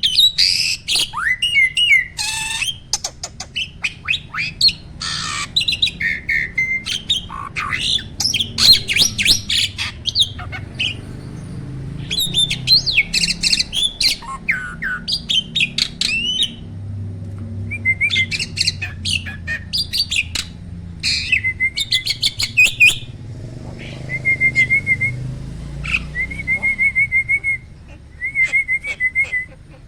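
Asian pied starling (jalak suren) singing a busy, varied song of sharp chirps, gliding whistles and harsh squawks. In the second half it switches to a string of short rattling notes repeated at one steady pitch.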